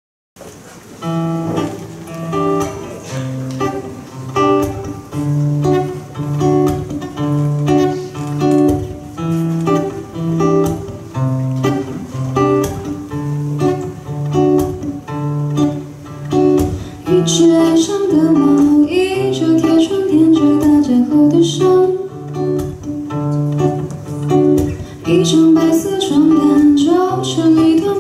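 Acoustic guitar playing a fingerpicked intro over a steady, repeating bass pattern. A woman's singing voice comes in a little past halfway, live through a microphone, over the guitar.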